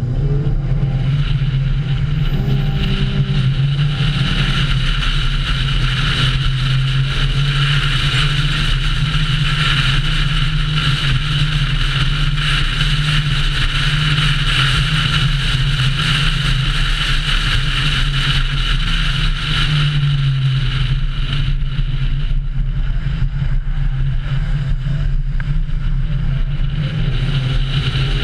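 Car driving at speed: a steady engine drone under loud road and wind noise. The noise eases a little after about twenty seconds.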